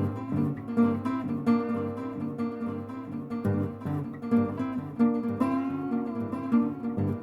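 Background music: acoustic guitar strummed and picked in a steady rhythm.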